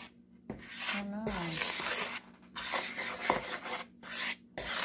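A utensil stirring dry flour and spices in a mixing bowl, scraping and rubbing through the powder in several strokes with short pauses between them.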